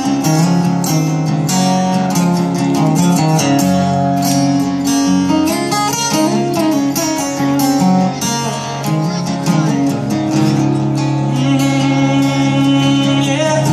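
Acoustic guitar playing an instrumental break in a country song, with strummed chords and picked melody lines.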